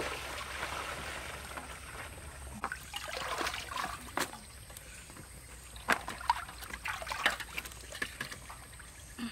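Water poured from a plastic bucket into a steel basin, splashing for about two seconds. After that come scattered sharp taps and rustles as vegetables are handled on a woven bamboo tray.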